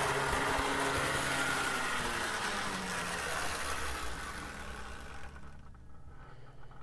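HO scale Athearn F7A model locomotive running on track, its electric motor and flywheel drive humming with wheel and track hiss. The pitch falls about two to three seconds in as it slows, and the sound drops away about five seconds in.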